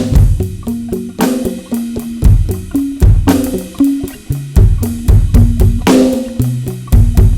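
Electronic drum kit played as a groove: quick strokes with heavier kick and snare accents about once a second, and pitched tom notes stepping between a few pitches.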